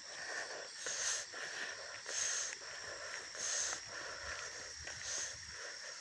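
A steady, high-pitched chorus of night insects, with a soft swishing burst about every second and a half.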